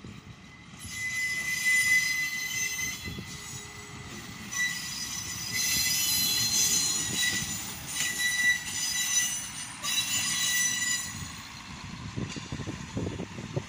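Wheels of a Czech Railways Class 810-type two-car railbus squealing against the rails as it runs through the station. The high-pitched squeal comes and goes in several stretches over a low rumble of the wheels, with low knocks near the end.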